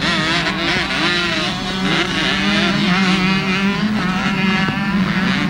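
Several 125 cc two-stroke motocross bikes racing, their engines revving up and down, over a steady low hum.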